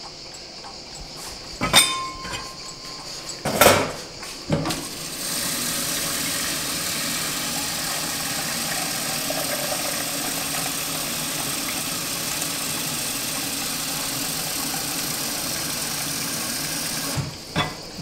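Clanks of a stainless steel pot and its lid being handled, one with a brief metallic ring, then water from a kitchen tap running steadily into the pot for about twelve seconds as it fills. A couple of clinks near the end as the tap is shut and the pot lifted.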